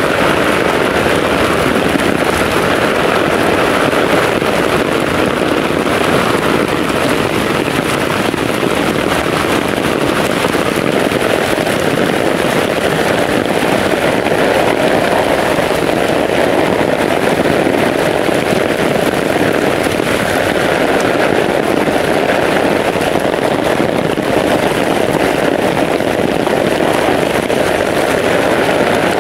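Heavy rain pouring down, a loud, steady, unbroken downpour.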